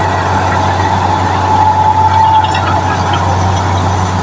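Heavy machine's engine running steadily: a constant low drone with a steady higher whine over it.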